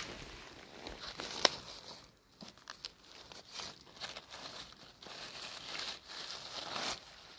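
Fallen chestnut leaves rustling and crinkling as the leaf litter is pushed aside by hand, with a sharp crack at the start and another about a second and a half in.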